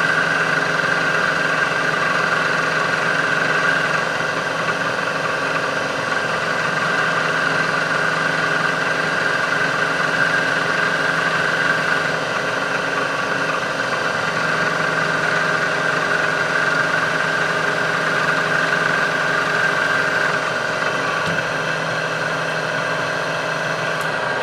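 Drilling machine's electric motor and spindle running steadily with a high whine, drilling a tapping hole to depth in gray cast iron.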